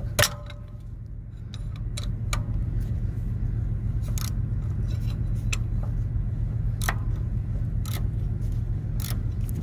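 Sharp metallic clicks at irregular intervals, a loud one just after the start, as the clutch adjusting bolt on a semi-truck's clutch is pushed in and turned with a 5/8 socket and wrench. A steady low rumble runs underneath.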